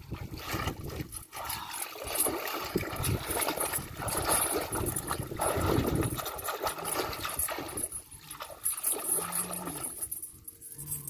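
Water splashing and sloshing as a long metal chain is hauled hand over hand through a shallow, muddy pond. The splashing dies down near the end.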